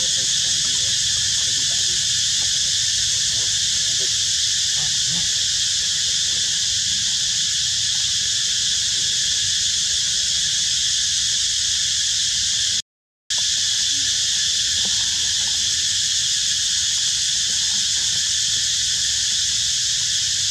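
Steady, high-pitched insect chorus, a dense unbroken drone of buzzing insects such as cicadas. It cuts out completely for a moment about two-thirds of the way through.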